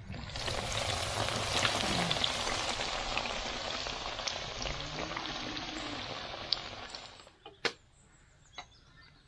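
Food frying in a pan of hot fat: a steady sizzle with small crackles that starts suddenly, slowly fades and stops about seven seconds in. A couple of sharp clicks follow.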